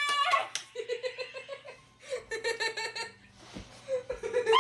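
Several women laughing hard in rapid ha-ha bursts, loudest at the start. Two soft, low thumps come near the end.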